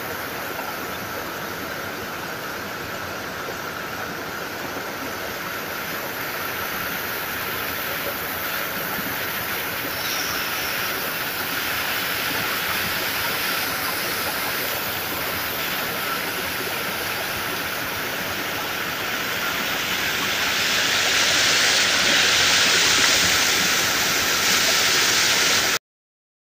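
Small forest waterfall and stream rushing steadily over rocks. It swells louder about twenty seconds in, then cuts off suddenly near the end.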